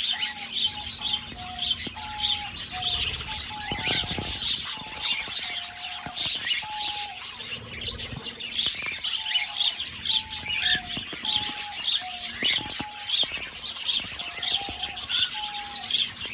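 Aviary flock of budgerigars chattering continuously with many quick high chirps and warbles. Through it runs a lower, short whistled note, repeated about once a second. A few soft thumps and rustles sound close to the microphone.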